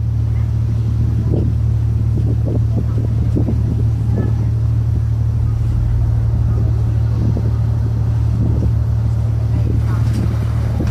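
Steady low drone of a ship's engines heard from on deck, with faint scattered voices over it.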